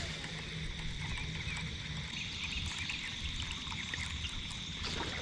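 Quiet open-air lake ambience: a steady low rumble and a thin high drone, with faint short chirps scattered through it.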